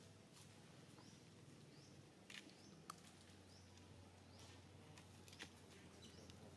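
Near silence: faint outdoor ambience with soft, high rising chirps repeating about once a second and a few faint clicks.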